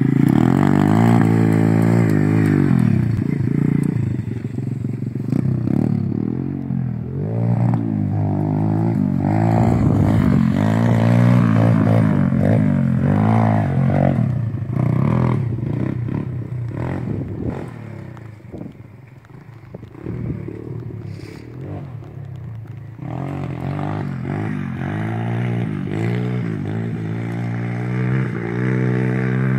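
Pit bike engine revving up and down as it is ridden, its pitch rising and falling with the throttle. It goes quieter for a few seconds past the middle, then louder again.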